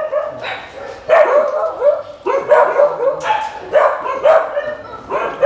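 Dogs barking, a run of short barks at about two a second.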